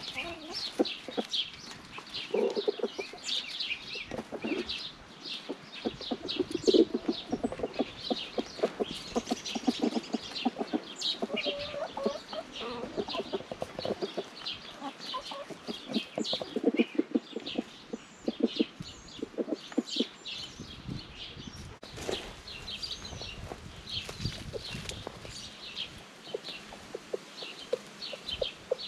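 A flock of backyard chickens clucking steadily as they feed on scattered bread, with many quick high-pitched ticks throughout.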